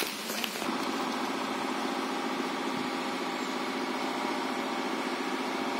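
An engine idling steadily, setting in about half a second in and holding an even pitch.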